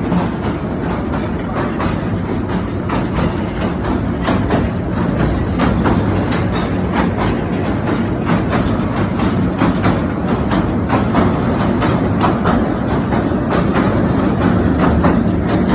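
Train running over a railway bridge: a steady loud rumble with a quick, continuous clatter of wheels on the rails.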